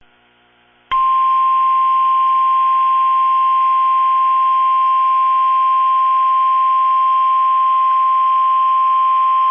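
NOAA Weather Radio warning alarm tone: one steady, loud, high single tone, the 1050 Hz signal that announces a warning broadcast is about to follow. It comes on suddenly about a second in and holds unchanged, over a light radio hiss.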